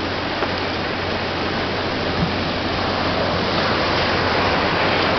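Ocean surf washing steadily onto the shore, a continuous rushing noise that swells a little in the second half.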